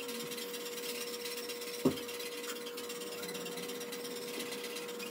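A Chosera 600 water stone on a guided sharpener's arm scrubbed back and forth along a steel cleaver edge, making a soft, even rasping. There is a single knock about two seconds in and a steady faint hum underneath.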